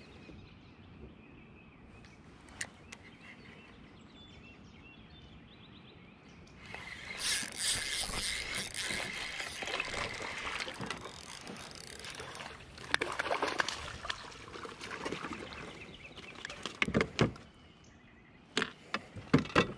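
Water splashing beside a kayak for several seconds as a hooked bass is fought to the boat. Then come a few hard knocks of the landing net and gear against the kayak's hull.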